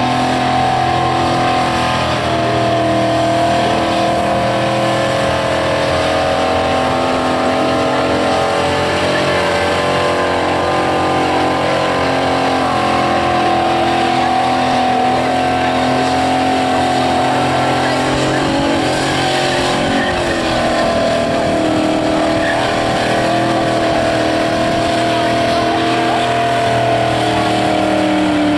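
Holden VN SS Commodore's V8 held at high, steady revs through a burnout, the rear tyres spinning and smoking. The engine note wavers and shifts pitch about two-thirds of the way through, then holds steady again.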